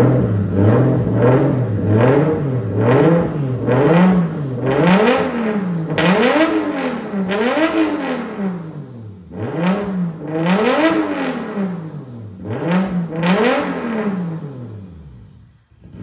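Nissan Skyline R32's turbocharged RB25 straight-six engine, breathing through a 4-inch exhaust, revved up and let fall back over and over, about once a second.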